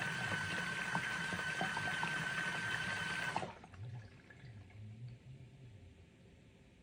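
Mini washing machine agitating a t-shirt in water: sloshing with a steady motor whine, which stops abruptly about three and a half seconds in. The rest is a quiet pause with a faint low hum.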